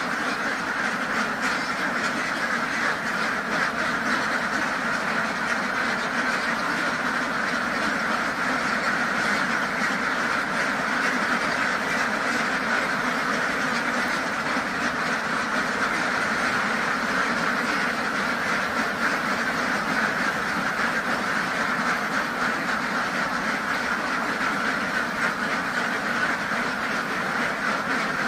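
A large flock of domestic ducks quacking continuously, a dense, steady din of many birds at once with no pauses.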